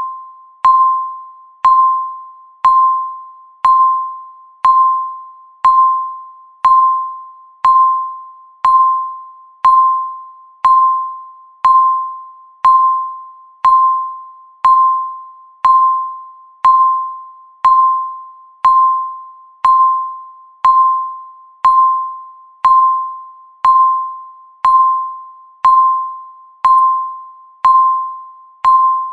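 Countdown timer beeping once a second, marking each second as it counts down: a single clear electronic ping that starts sharply and fades away before the next one.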